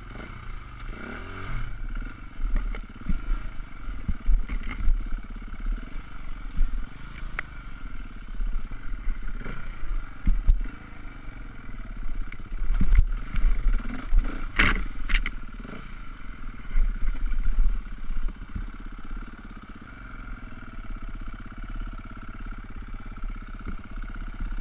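Enduro dirt bike engine running with the revs rising and falling as the bike works along a rough, rocky trail. Scattered knocks and clatter sound as it bounces over the ground, the loudest a little past halfway.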